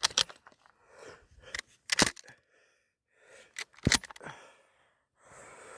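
Mossberg 12-gauge pump-action shotgun firing two shots about two seconds apart, with lighter clacks of the pump action around them.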